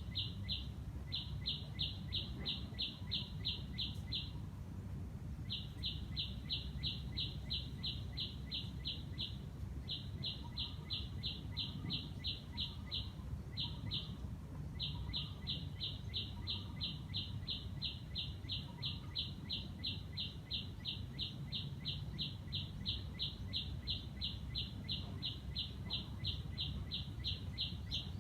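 A bird calling a fast string of short high notes, about four a second. The notes come in runs broken by brief pauses, over a steady low background rumble, with fainter, lower calls from another bird partway through.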